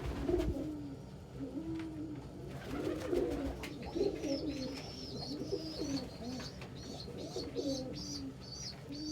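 Domestic pigeons cooing in a loft, with repeated low coos throughout. From about four seconds in, a quick string of high-pitched peeps runs over the cooing.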